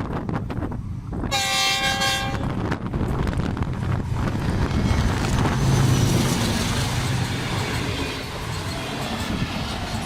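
Pakistan Railways GEU-20 diesel locomotive sounds one horn blast of about a second and a half, then the passenger train rumbles past with steady wheel and carriage noise and wind buffeting the microphone.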